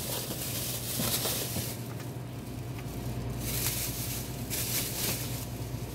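Store checkout background: a steady low hum with a faint steady tone above it, and several short bursts of rustling, about a second in and again past the middle.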